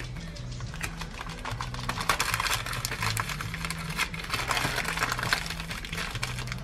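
Parchment paper crinkling and rustling as it is folded and pressed tightly around a sandwich, a dense run of irregular crackles with louder swells of handling in the middle.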